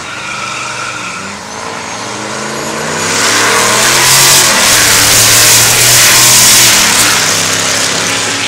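A GMC pickup and a 1955 Chevrolet launching side by side in a drag race and accelerating hard past, their engine notes climbing and dropping with the gear changes. The sound builds from the start and is loudest in the middle as the pickup goes by, with the Chevy following near the end.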